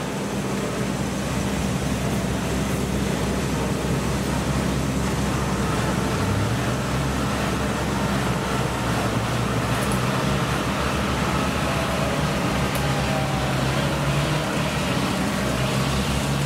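Kubota DC-70 rice combine harvester's diesel engine running steadily as the machine travels, its pitch stepping up about six seconds in.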